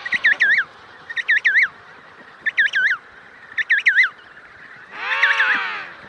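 Emperor penguin chick whistling: short series of three or four quick warbling notes, repeated about once a second. About five seconds in, the adult emperor penguin gives a louder, deeper call that rises and falls for about a second.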